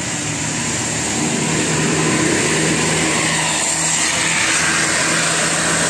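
Road vehicle passing with steady engine hum and tyre noise, swelling louder from about a second in. No horn sounds.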